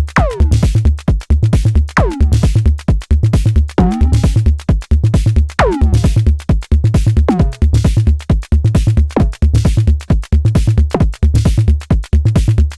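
Arturia DrumBrute Impact analog drum machine playing a beat: a steady kick drum under fast hi-hats. Every couple of seconds its FM drum voice sounds a tone that falls steeply in pitch.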